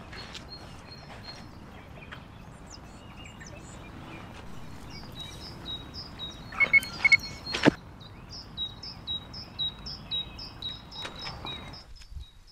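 Steady hiss of rain on a riverbank, with a small songbird giving a run of short high chirps through the second half. About halfway through come a few sharp knocks and clicks as fishing gear is handled and packed up.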